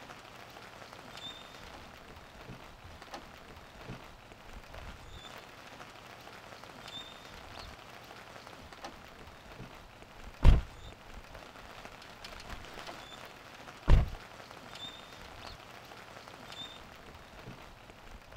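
Light rain falling on a parked car: a steady patter with scattered drips and, now and then, a faint short high chirp. Two heavy low thumps stand out, about ten seconds in and again three and a half seconds later.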